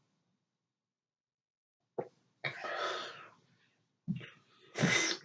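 A man coughing twice: a breathy cough lasting about a second, starting about two and a half seconds in, and a louder, sharper one near the end.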